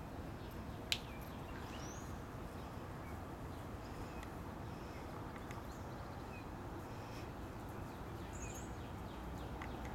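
Quiet outdoor ambience: a steady low background noise with a few faint bird chirps and a single sharp click about a second in.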